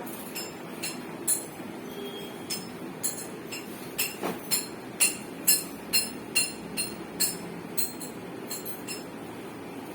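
An irregular series of sharp metallic clinks and knocks, coming faster in the second half, as tools and small metal parts are handled, likely while a washing machine's transit bolts are worked loose.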